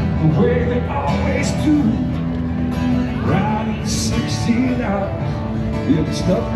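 Country music: a voice singing over guitar-led accompaniment.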